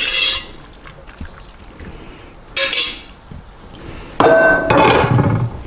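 Cooked rigatoni scraped and slid out of a stainless steel pot into a skillet with a spoon: short scraping bursts, then a louder metallic clank with a brief ringing tone about four seconds in.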